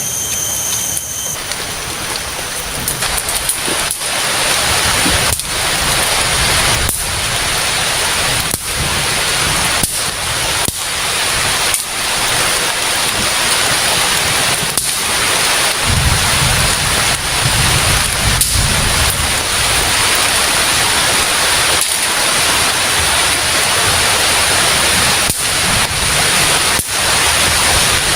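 Heavy rain pouring down steadily, with a low rumble about halfway through.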